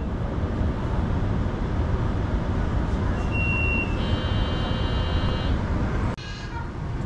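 Steady low rumble inside a tram car. About three seconds in, a short high steady tone sounds, followed by a layered high tone lasting about a second and a half.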